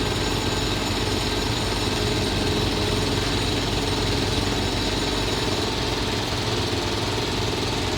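Excavator's diesel engine running steadily under load, working its hydraulics to lift.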